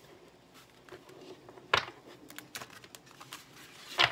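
Tarot cards being handled: scattered soft clicks and rustles, with two sharper card snaps about 1.7 s in and near the end.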